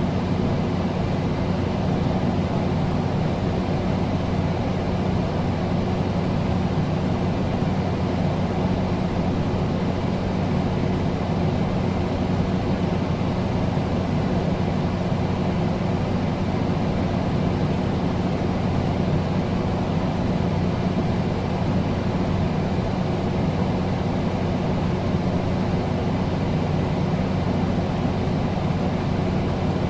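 Air conditioner running steadily: an even rush of air over a low, constant hum.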